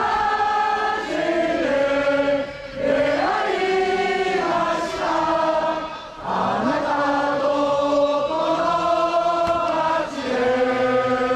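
Football supporters singing a slow song together in unison. They hold long notes in phrases of about four seconds, each broken by a short pause for breath.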